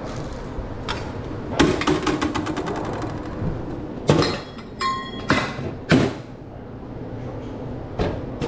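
Knocks and clatters of utensils and containers at a hot dog stand, the first followed by a short rattle, with a brief high tone about five seconds in.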